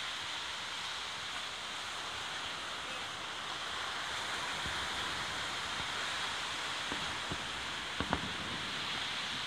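Steady wash of surf on the beach. Near the end come a few low thuds, the loudest a quick double thud: the bangs of distant fireworks bursting over the sea.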